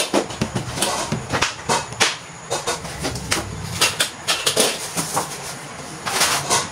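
Laminated flat-pack furniture panels being handled and shifted, knocking and clacking against one another and the floor in a run of irregular sharp knocks, with a louder cluster near the end.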